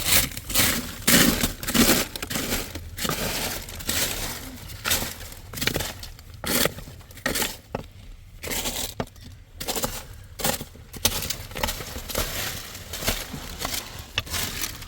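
Irregular crunching and crackling noises, a quick run of sharp cracks and clinks at uneven intervals, loudest in the first two seconds and again around six to seven and eleven seconds in.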